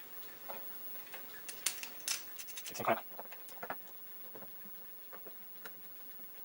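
Scattered light clicks and taps of small metal parts being handled and set in place: a small socket being fitted against a metal bushing to press it in. The sharpest clicks come between about one and a half and three seconds in, then only faint ticks.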